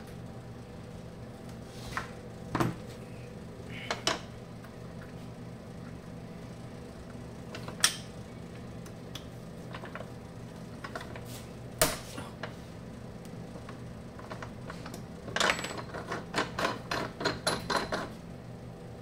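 Clicks and knocks of a Zimmer ATS 2000 tourniquet unit's plastic housing being handled and closed up, with a quick run of about a dozen rattling clicks near the end. A steady low hum runs underneath.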